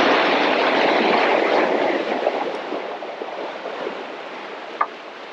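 Small sea waves washing over rocks at the water's edge: a loud surge that eases off after a couple of seconds into a quieter wash, with a single short click near the end.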